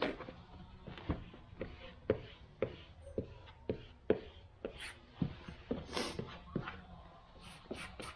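Light taps and knocks, about two a second, with a short rubbing scrape partway through, from a vinyl-covered dash pad being handled and worked on a bench.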